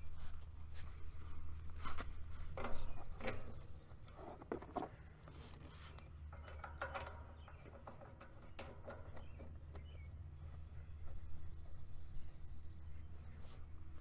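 Refrigerant gauge hoses being threaded by hand onto an air conditioner's brass service valve ports: scattered metallic clicks and light knocks, over a steady low hum.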